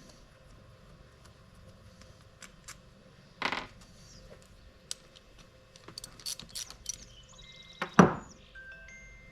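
Hand tools and metal engine parts clinking and clicking during an engine teardown. There is a short clatter about three and a half seconds in, a run of quick clicks, then a louder metal clank near the end that rings briefly.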